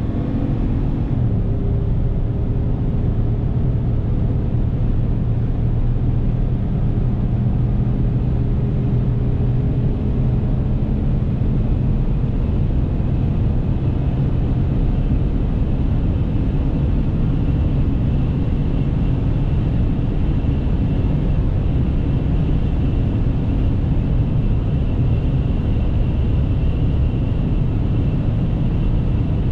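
Dodge Ram 1500's 5.7-litre Hemi V8 pulling under sustained acceleration at autobahn speed, heard from inside the cab over heavy road and wind noise. The engine note drops in pitch about a second in, and a faint high whine joins in the second half.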